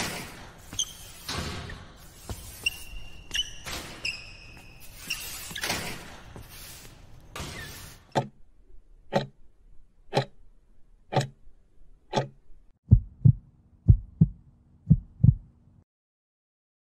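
Countdown sound effect: five sharp ticks about a second apart, then a quick run of deep thumps in pairs over a low hum that cuts off suddenly. Before the ticks, faint scattered clicks and a few short high squeaks.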